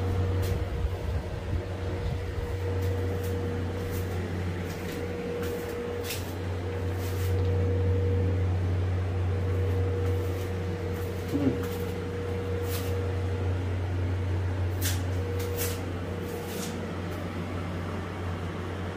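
Window air conditioner running steadily as the cooling unit of a walk-in cooler: a steady low hum with a fainter steady tone above it and a few faint clicks.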